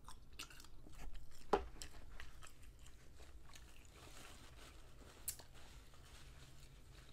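Close-miked eating mouth sounds: chewing and smacking with a few sharp clicks, the loudest about a second and a half in. Later a paper towel rustles and crumples as greasy hands are wiped.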